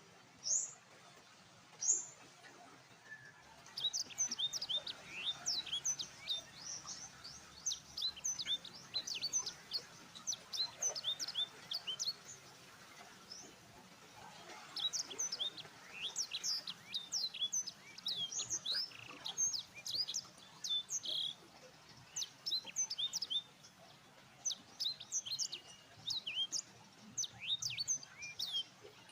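Small birds chirping: many quick, high, downward-sweeping chirps from several birds overlapping. After two lone calls, the chirping thickens a few seconds in and carries on with short lulls.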